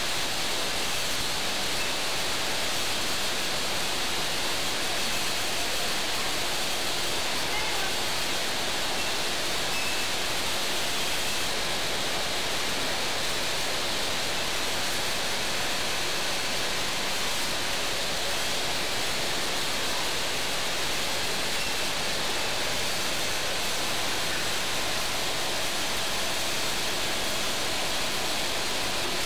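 Steady, even hissing noise of a running vial powder-filling line, with its conveyor and filler, and no distinct clicks or knocks.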